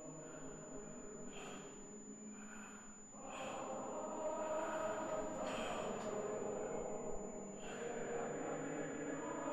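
A person's sharp, heavy breaths, about one every two seconds, over a low sustained drone that swells about three seconds in.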